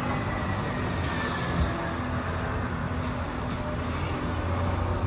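City bus running, heard from inside the passenger cabin: a steady low drone of the drivetrain with road noise over it, and a faint falling whine about a second in.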